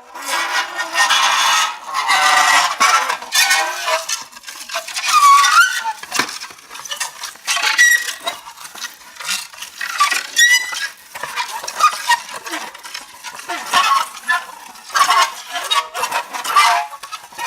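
Metal pressed against dry ice, squealing and chattering in irregular fits with short squeals that glide up and down in pitch, over a light sizzle. The cold sublimating gas sets the metal vibrating.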